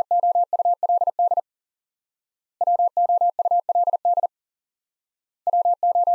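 Morse code sent as a single steady beep tone at 40 words per minute, spelling the word WOULD over and over: one sending ends about a second and a half in, a full repetition follows, and another begins near the end.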